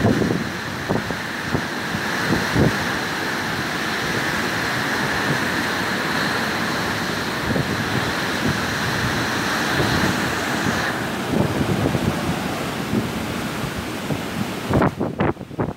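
Hurricane rain and wind: a steady, loud hiss of heavy rain with gusts buffeting the phone's microphone in irregular low rumbles. The hiss thins a little about two-thirds of the way through, and a few strong gusts hit the microphone near the end.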